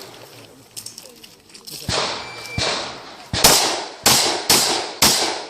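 Six shotgun shots fired in quick succession, about one every half to three-quarters of a second, each with a short echo; the last four are the loudest.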